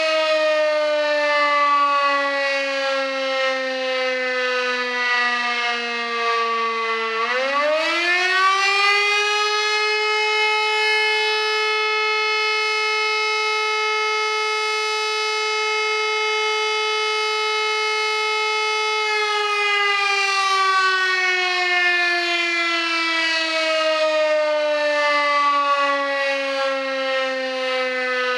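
Modified WW2 Elektror L1/F2 combination electric motor siren: its wail sinks slowly as the rotor coasts down, then climbs steeply about seven seconds in as the motor is powered again. It holds a steady high pitch for roughly nine seconds, then falls slowly again as the rotor winds down after switch-off.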